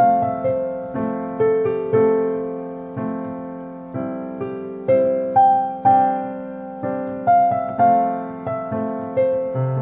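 Slow solo piano music: a gentle melody of single notes over lower chords, struck about twice a second and left to ring away, with a deeper bass note coming in near the end.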